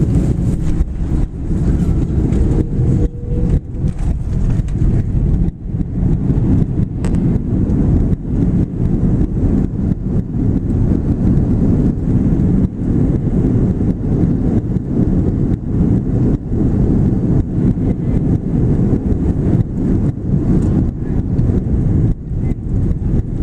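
Loud, steady low rumble of an Airbus A330-300 heard from inside the cabin during landing, with a faint rising whine over the first few seconds.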